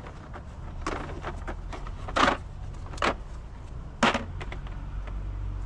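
A few sharp knocks and clicks from parts being handled in a car's engine bay, the loudest about two seconds in and again at three and four seconds, over a steady low hum.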